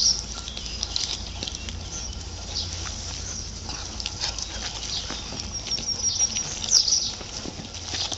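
A litter of nine-week-old Newfoundland puppies feeding together on a piece of raw beef tripe: wet chewing, gnawing and tearing with many small clicks. A few short high squeaks stand out, the loudest at the very start and about seven seconds in.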